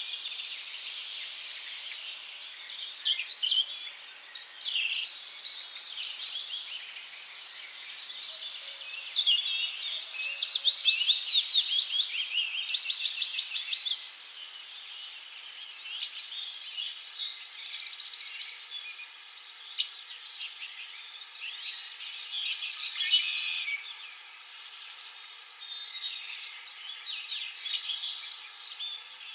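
Several small songbirds chirping and singing over one another, with a loud, fast, rapidly repeated trill about ten seconds in that lasts a few seconds.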